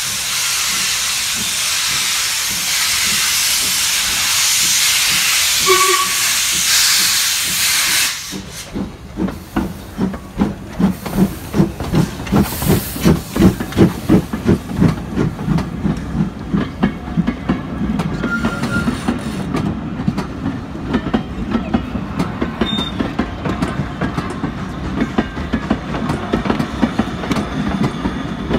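Steam tank locomotive hissing steam loudly, with a short whistle note about six seconds in. The hiss cuts off after about eight seconds and the engine starts away with regular exhaust chuffs, then its carriages roll past with a clickety-clack of wheels over the rail joints.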